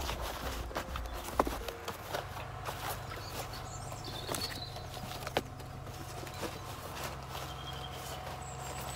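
Flattened cardboard being handled and tucked around the base of a corrugated metal raised bed: scattered rustles, scrapes and light knocks.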